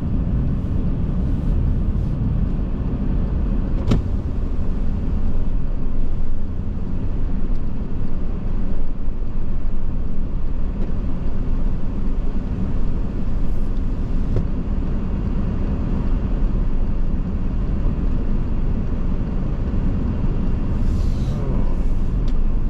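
Steady low rumble of a car being driven, heard from inside the cabin, with one sharp click about four seconds in.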